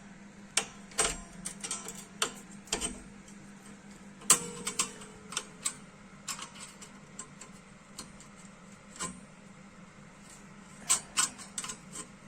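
Irregular light metallic clicks and taps from hand work on a Chevrolet Lanos rear drum brake assembly, with one sharper knock about four seconds in that rings briefly and a quick cluster of clicks near the end, over a faint steady hum.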